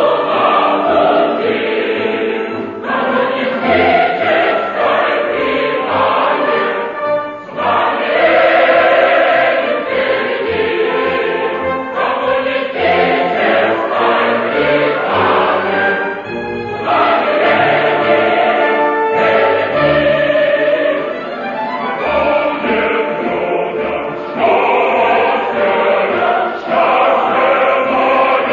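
A choir singing a Soviet march song in Russian, with orchestral accompaniment; the singing runs in phrases with short breaks between them.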